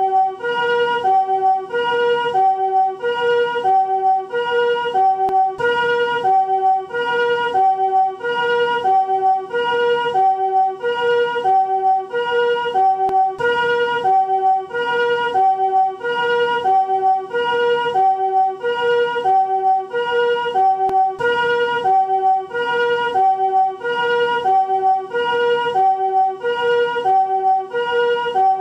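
Japanese ambulance siren in its newer chord (harmonic) form: the two-tone 'pee-poh' call, each note sounded as a chord rather than a single tone. A high and a low chord alternate about once a second at a steady pitch, repeating evenly.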